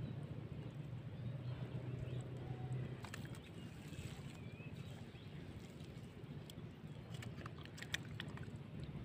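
Hands digging and groping in wet mud and water under a rotting tree stump, with scattered wet squelches and small clicks, most of them in the second half, over a steady low hum.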